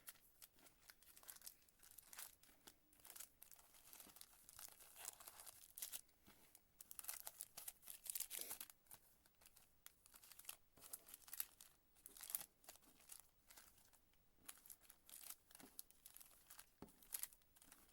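Faint crinkling and rustling of sealed Panini Prizm retail card packs' wrappers as the packs are mixed around by hand, in many short irregular crackles.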